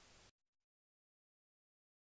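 Near silence: a very faint hiss that cuts off about a third of a second in, then dead silence.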